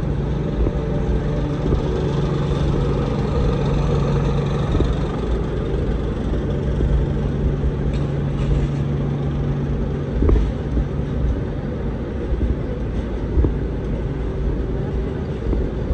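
City street traffic: a steady low rumble of motor vehicles, with the steady hum of a large vehicle's engine that stops about eleven seconds in.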